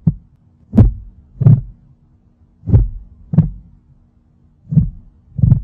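Heartbeat sound effect: paired lub-dub thumps over a faint steady hum, the beats slowing to about one every two seconds.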